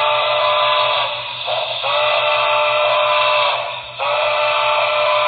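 Model steam locomotive whistle, a recorded whistle played by the sound system of a Broadway Limited brass model of the Santa Fe Blue Goose: a chime of several steady tones blown in long blasts, three of them with short breaks between.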